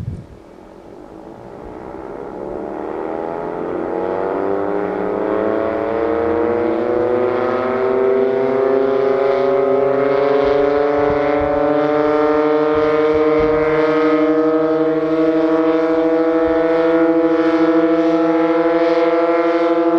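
Sentry 16V1T-B tornado siren winding up slowly from a low moan, its pitch rising over about ten seconds and then holding steady. The sluggish start-up marks an ailing siren, which the uploader ties to dying batteries.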